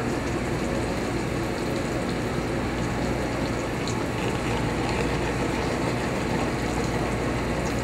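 Steady rushing noise from the open burners of a commercial gas range turned up high, with pans of butter sauce and searing tuna sizzling on them.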